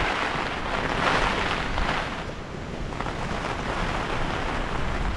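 Typhoon wind buffeting the microphone: a steady rushing noise with a low rumble, dipping a little about halfway through.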